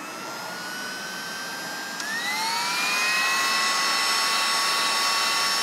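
Electric heat gun blowing hot air onto a solder-seal heat-shrink butt connector to melt the solder and shrink the tubing. Its fan runs with a steady rush and whine; about two seconds in there is a click, and the whine climbs in pitch and gets louder, then holds steady.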